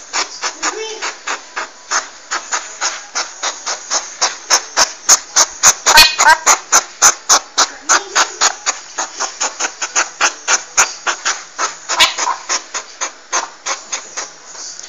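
Porcupine making a fast run of sharp clicks, about four or five a second, with a few short squeaky calls in between, the clearest about six seconds in.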